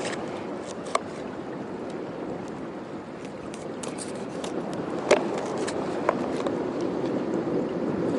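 Steady wash of sea surf against the rocks, with a few sharp knocks and clicks of a knife against a plastic cutting board as a small fish is beheaded and gutted, the clearest about one second and five seconds in.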